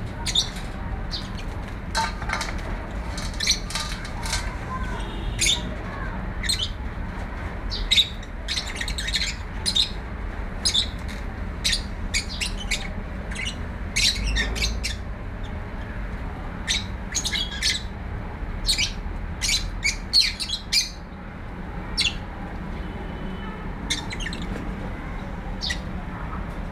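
A small bird chirping in many short, high calls, coming irregularly and sometimes in quick clusters, over a steady low hum.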